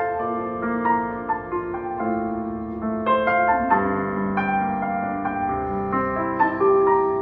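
Electronic keyboard playing a slow instrumental passage of a worship song in a piano voice: chords held under single melody notes, each note ringing on after it is struck.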